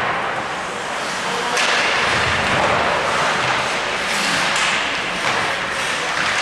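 Ice hockey play in an indoor rink: a steady hiss of skates and rink noise, broken by a few sharp knocks of sticks, puck or bodies against the boards.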